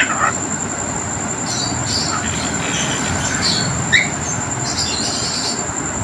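Pet parrot giving a few short chirps, one sharp rising chirp about four seconds in, over a steady background noise and a constant high-pitched whine.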